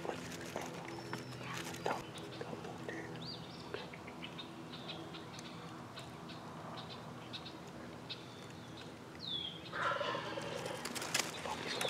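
Wild turkey gobbler gobbling once, a rattling call about ten seconds in, with faint scattered bird chirps before it.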